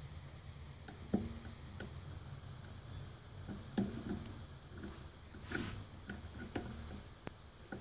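Irregular small metallic clicks and taps of circlip pliers working a circlip off the axle of an e-bike hub motor, over a low steady hum.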